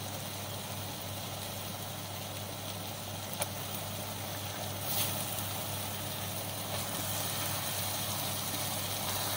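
Sliced onions and spices frying in a pot, a steady sizzle over a low steady hum, as raw chicken mince is dropped in. A single sharp click comes a few seconds in.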